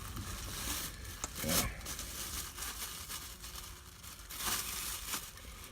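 Paper or plastic packaging being handled, rustling and crinkling in a few short bursts over a low background hum.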